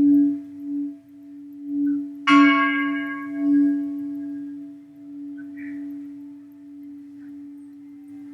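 A large church bell struck once, a little over two seconds in, its many overtones dying away over a few seconds. The deep hum note rings on under them, wavering slowly in loudness, and an earlier stroke is still fading at the start.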